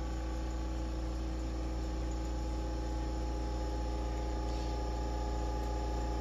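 Steady, unchanging low hum with a few constant higher tones over it.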